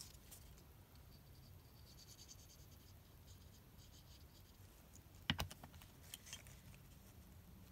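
Near silence with faint handling of paper and a glue bottle on a cutting mat: small scratchy ticks, and one sharp click a little past five seconds in, followed by a few softer taps.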